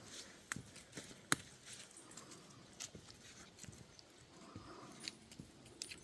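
Footsteps of a walker and a group of dogs: scattered light clicks and taps at an irregular pace, fairly faint.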